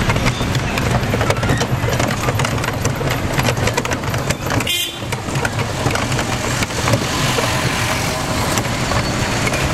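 A rickshaw in motion on a paved street: steady rattling and clattering of the rickshaw with rumbling road and street noise. The sound drops out briefly about five seconds in.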